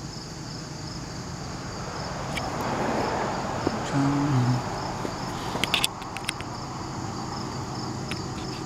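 Crickets chirping steadily in a pulsing rhythm over a low hum. A swell of rushing noise rises and fades around three seconds in, a brief low voiced hum follows about four seconds in, and a few sharp clicks come near six seconds.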